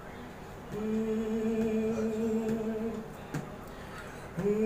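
A man singing a Bhojpuri film song with no accompaniment, holding one long steady note for about two seconds, then sliding up into the next held note near the end.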